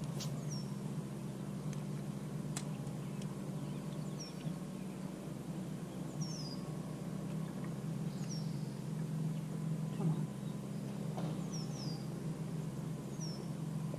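A small bird calling repeatedly, short high chirps that slide downward, one every second or two, over a steady low hum.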